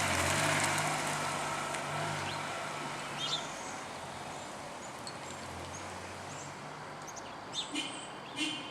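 A low engine hum that slowly fades away, with short bird chirps near the end.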